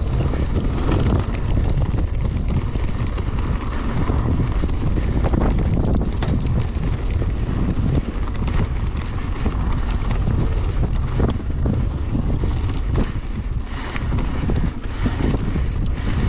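Wind buffeting the microphone of a camera riding on a Marin Alpine Trail XR mountain bike at downhill speed, a steady heavy rumble, with tyres on dirt and frequent short clicks and rattles from the bike over rough trail.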